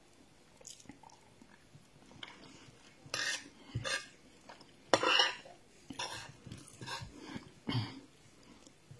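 Eating sounds close to the microphone: chewing of rice and a spoon scraping the plate, a series of short irregular sounds, the loudest about five seconds in.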